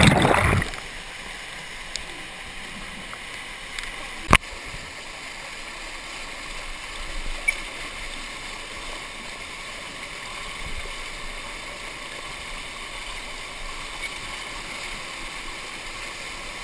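Steady rush of a canyon stream pouring down a narrow whitewater cascade. It opens with a loud splash as the camera plunges into the churning pool, which dies away within the first second, and a single sharp knock comes about four seconds in.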